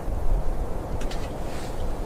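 Wind buffeting the microphone as a steady low rumble, with two brief faint scrapes about a second in.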